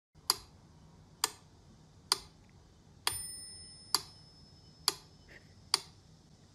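A mechanical pyramid metronome ticking steadily, about one tick every 0.9 seconds, seven ticks in all. About three seconds in, one tick is followed by a bell-like ding that rings on for a couple of seconds.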